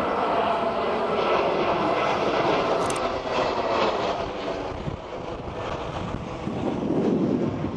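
Twin-engine jet airliner passing low overhead, a continuous loud rush of engine noise that dips slightly about five seconds in and swells again near the end.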